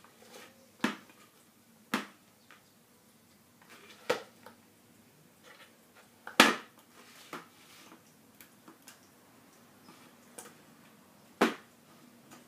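Plastic cat treat puzzle toy clacking as a cat bats and noses at it: a series of sharp, irregularly spaced knocks, the loudest about six seconds in.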